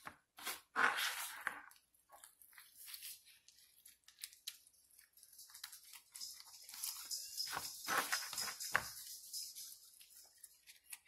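Hands smearing a thick mayonnaise-and-mustard coating over a raw turkey breast in a stainless steel pot: wet squishing and rubbing in irregular bursts, loudest about a second in and again around eight seconds in.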